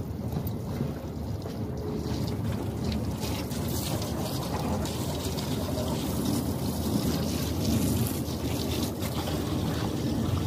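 Steady low rumbling noise of wind buffeting the microphone, without any clear machine tone.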